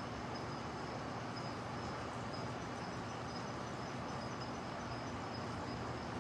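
Steady outdoor ambience: an even hiss with a low hum underneath, and a faint, high insect trill pulsing throughout.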